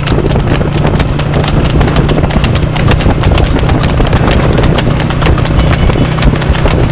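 Horse's hooves clattering on an asphalt road in a quick, steady clip-clop as it pulls a two-wheeled cart at speed, over a steady low hum.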